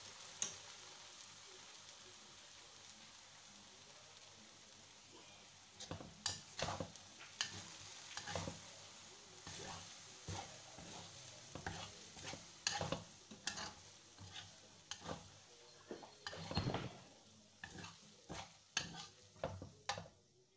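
Sabah yellow noodles in soy sauce sizzling faintly in a wok, then from about six seconds in a metal spatula scrapes and knocks against the wok over and over, about one or two strokes a second, as the noodles are stir-fried.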